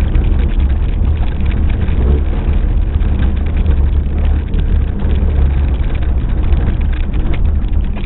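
Car driving on a gravel road: a steady low rumble of engine and tyres, with a constant crackle of loose stones under the tyres.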